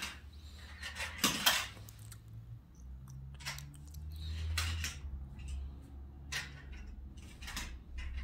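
Small toy cars clicking and clattering as they are picked up, set down and loaded onto a plastic toy car-carrier truck, a handful of separate knocks with the loudest cluster about a second in. A low steady hum runs underneath.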